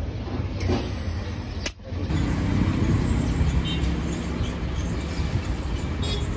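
A steady low motor rumble that drops out briefly a little before two seconds in, then carries on with a low hum.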